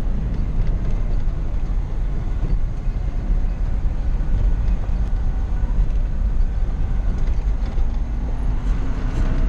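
Mazda T4000 truck's engine and drivetrain running at road speed, heard from inside the cab with tyre and road noise: a steady low rumble. Near the end a faint engine tone rises slightly.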